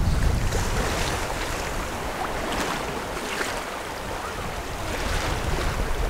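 Wind buffeting the microphone over water washing along the hull of a small sailboat under sail, with no engine running. The noise is steady, heaviest in the low rumble.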